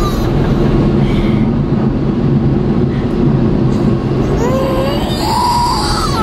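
Automatic car wash machinery and water spraying on the car, heard from inside the cabin as a loud, steady rumble. A high wavering voice rises over it near the end.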